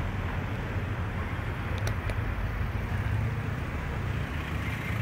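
City street ambience: a steady noise of road traffic with a low rumble, and two faint clicks about two seconds in.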